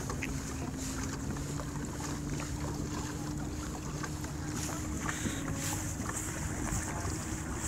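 Water lapping and trickling against a Hobie pedal kayak's hull as it moves along, with wind rumbling on the microphone and a faint steady low hum.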